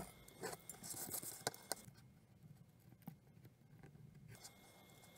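Craft knife cutting through cardboard along a steel ruler: faint scratchy strokes and small clicks, mostly in the first two seconds, fading to near silence for a couple of seconds before a few more faint scrapes.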